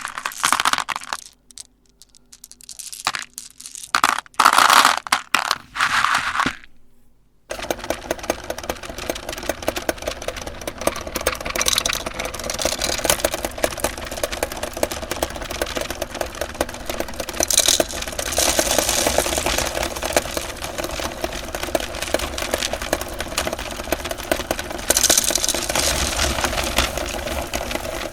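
Candy crunching in separate bursts for the first several seconds. Then an electric meat grinder starts running steadily, with a dense rapid rattle as it grinds the candy-coated chocolates.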